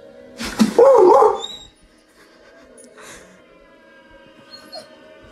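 A dog gives one loud cry with a wavering pitch, about a second long, starting about half a second in.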